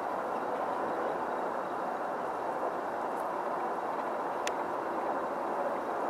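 Steady rushing background noise with no bird calls, and a single faint click about four and a half seconds in.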